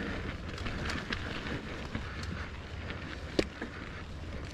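Mountain bike on a dirt trail: a steady rumble of tyre and wind noise with light rattles and clicks, and one sharper click about three and a half seconds in.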